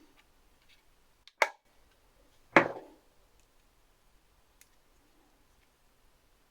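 Two sharp clicks about a second apart, the second louder with a short ring-out, over a quiet room with a few faint ticks.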